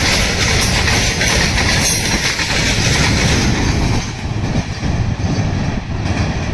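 Freight train of covered goods wagons rolling past close by, its wheels running on the rails. The noise eases about four seconds in, as the brake van at the tail goes by and the train moves away.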